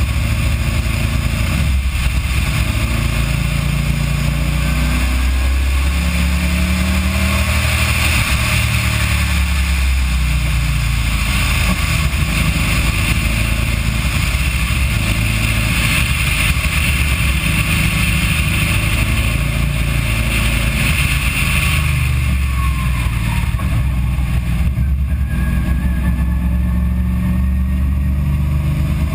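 A car's engine running steadily at speed in fourth gear, heard from on board over a broad hiss of road and wind noise. Late on, the hiss falls away and the engine note shifts as the car slows and drops into third.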